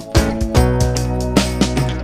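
Background music with guitar, bass and a steady beat.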